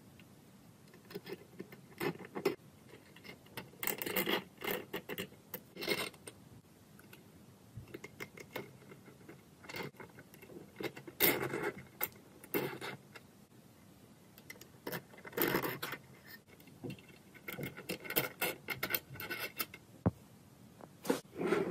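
Small metal parts of a model Stirling engine being handled and fitted with tweezers: irregular light clicks, taps and scrapes of metal on metal, coming in scattered clusters.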